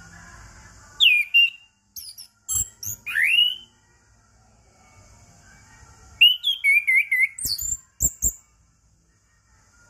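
Orange-headed thrush singing in separate bursts of varied song. The bursts mix sharp falling and rising whistles with quick chattery, warbled notes, one about a second in, a cluster from two to three and a half seconds, and another from about six to eight seconds. A faint high hiss fills the gaps between phrases.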